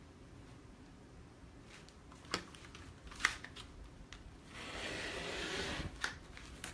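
Rotary cutter rolling along a ruler and slicing through fabric on a cutting mat: one rasping stroke of about a second and a half near the end, after a couple of light clicks.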